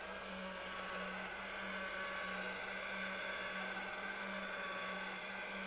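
Electric pasta machine motor running steadily, turning the rollers as a sheet of fresh pasta dough is fed through to be rolled thinner: an even whir over a constant low hum.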